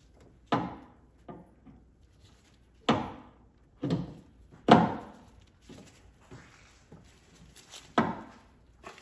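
Irregular dull thuds and knocks of metal suspension parts as the new lower wishbone's ball joint stud is worked up into the rear hub carrier, a dozen or so hits with the loudest a little under five seconds in.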